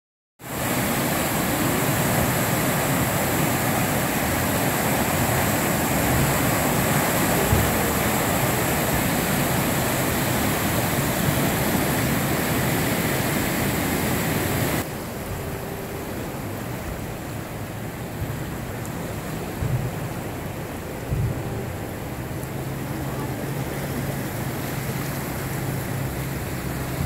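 Floodwater of a swollen creek rushing and churning through the openings under a concrete bridge: a loud, steady rush of water. About halfway through it drops to a quieter steady rush, and near the end a faint low hum joins it.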